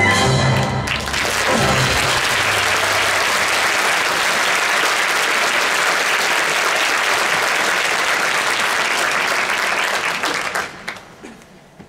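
Large theatre audience applauding, with the orchestra's last notes ending at the start. The applause dies away about ten seconds in.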